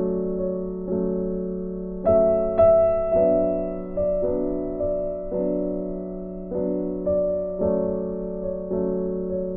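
Background piano music: slow, gentle chords struck about once a second, each fading before the next.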